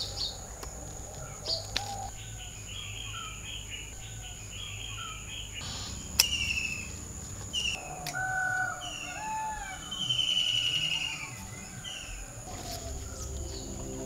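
Garden birds chirping, trilling and whistling over a steady high buzz typical of insects, with a few sharp clicks, the loudest about six seconds in.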